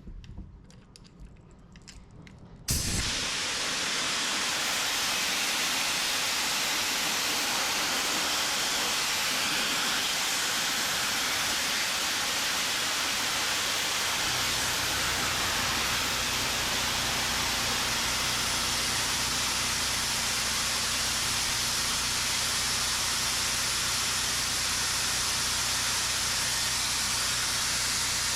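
Compressed air hissing steadily out of a Kanbol K-PC335B pneumatic can crusher; it starts suddenly a few seconds in. This is escaping air that should not be there: a line on the crusher has been left unconnected. A low steady hum joins it about halfway through.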